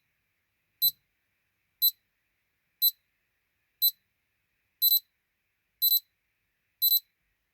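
SilverCrest digital alarm clock's alarm beeping: a short, high-pitched electronic beep once a second, which changes to a quick double beep each second about five seconds in as the alarm steps up.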